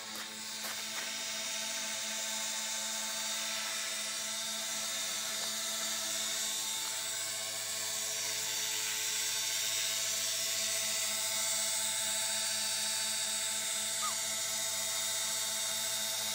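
Align T-Rex 450 electric RC helicopter hovering: a steady whine from its electric motor and a hiss from the spinning rotor.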